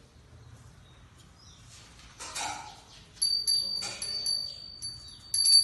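Puja hand bell (ghanta) rung rapidly and continuously, starting a little past halfway and growing louder near the end, as is done during the lamp offering of the worship. A brief handling noise comes just before it.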